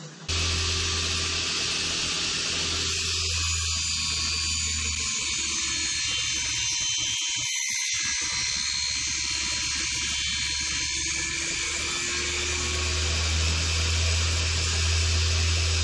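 Table saw running steadily as a plywood panel is pushed through the blade on a crosscut sled: a constant low hum with a hiss on top.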